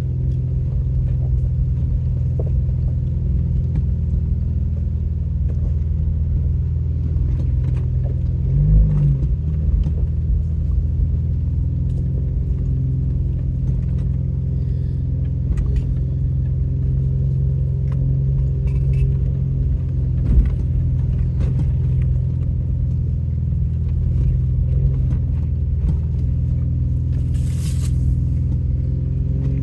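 Off-road vehicle's engine running at low speed, heard from inside the cabin as a steady low drone while it crawls a rough trail. There is a brief swell about nine seconds in, a sharp knock around twenty seconds, and a short hiss near the end.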